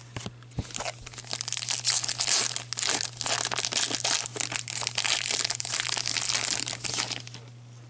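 Silvery foil wrapper of a 2015-16 Upper Deck Trilogy hockey card pack being torn open and crinkled by gloved hands. The dense crackling starts about a second in and dies away shortly before the end.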